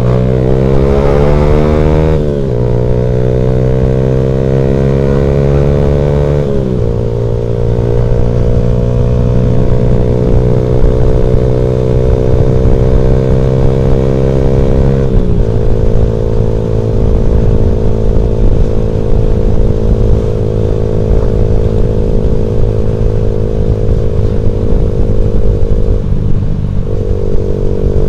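Motorcycle engine accelerating up through the gears: its pitch climbs and drops sharply at each upshift, three times in the first fifteen seconds, then holds steady at cruising speed with a brief lift-off near the end. A steady wind rumble runs underneath.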